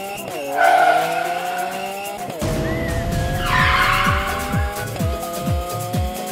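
Car engine revving with tyre-skid screeches, over electronic music whose steady kick-drum beat comes in about two seconds in.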